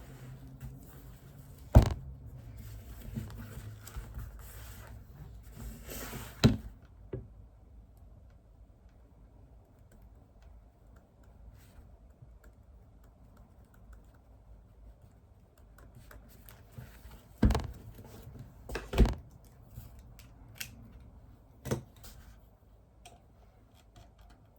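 Desk sounds of someone studying: paper rustling in the first seven seconds and five sharp knocks of things being handled or set down on the desk, with faint small taps of writing or typing in between.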